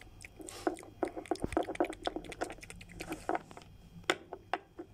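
Quick, irregular clicking and tapping of a plastic Littlest Pet Shop toy figure knocked against a small plastic food piece on a wooden tabletop, miming eating.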